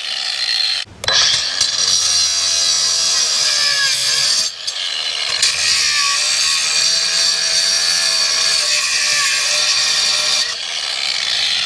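Handheld grinder running under load, grinding off the screw tips that poke through the board: a steady high grinding noise whose motor pitch wavers, easing off briefly about a second in and again around four and a half seconds.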